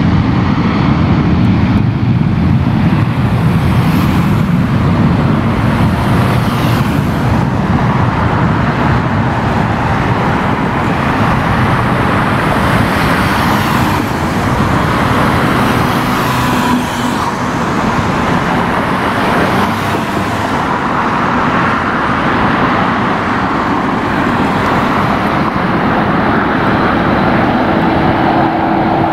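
Loud, steady road traffic noise, with vehicles passing every few seconds.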